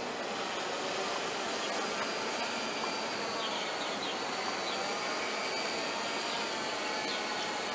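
Water-landing quadcopter drone flying overhead: a steady propeller buzz with a whine in it that shifts a little in pitch as it manoeuvres.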